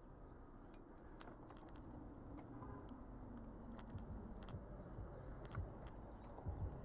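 Faint low rumble of riding, with scattered light clicks and ticks and a few low thumps in the second half.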